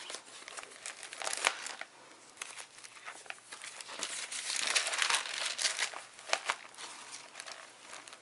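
Sheets of scrap craft paper being handled, rustling and crinkling in irregular bursts with a few sharp crackles, busiest in the middle.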